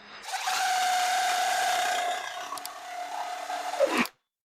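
Impact driver spinning a pipe-cleaning bit on a 22 mm copper pipe, scrubbing off paint and dirt: a steady motor whine with scraping noise. It gets quieter about two seconds in and stops abruptly shortly before the end, its pitch dropping as it spins down.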